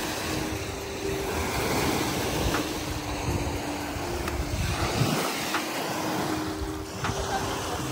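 Wind rumbling on the microphone over small lake waves washing up onto a sandy shore. The rumble eases for a moment about five seconds in.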